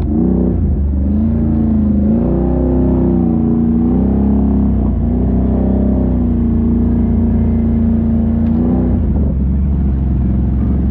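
ATV engine running under changing throttle, its pitch rising and falling, then settling lower about nine seconds in.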